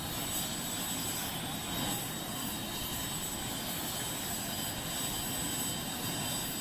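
Eurocopter Écureuil helicopter running on the ground with its main rotor turning: a steady turbine whine with a constant high tone over an even rush of engine and rotor noise.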